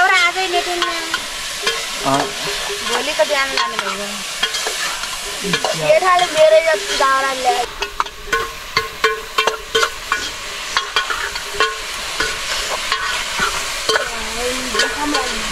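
A metal ladle stirring and scraping food in a pot over an open wood fire, with sizzling and many short clicks and ticks.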